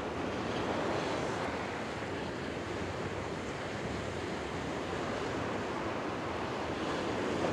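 Ocean surf washing up onto a sandy beach: a steady, noisy rush of small breaking waves that swells slightly about a second in and again near the end.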